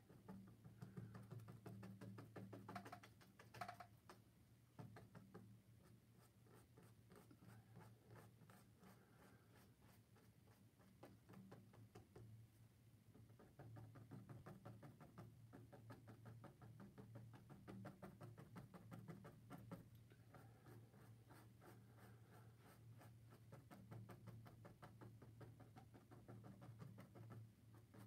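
Faint, rapid tapping and scratching of a paintbrush dabbing acrylic paint onto a stretched canvas, over a low steady hum.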